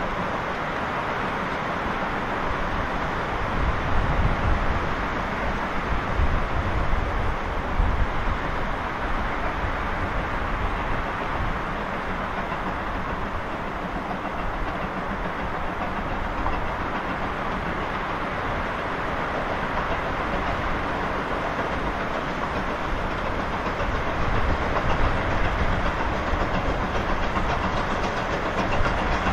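GWR Hall-class 4-6-0 steam locomotive No. 6990 Witherslack Hall working a goods train of vans, its exhaust and the rolling wagons making a steady rumbling noise that grows a little louder near the end as it approaches.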